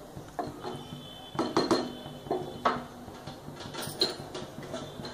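Wooden spatula stirring a thick dal-and-vegetable mixture in a metal pressure cooker, knocking and clinking against the pot's sides. The knocks come thickest about one and a half to three seconds in, with one more near the end.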